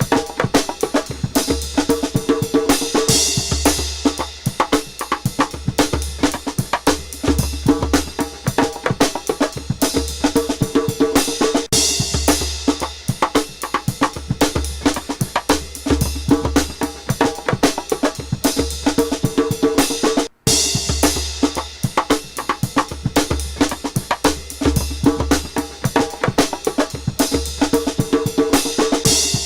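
Music with a driving drum-kit beat: steady kick drum, snare and hi-hat, with cymbal crashes every few seconds.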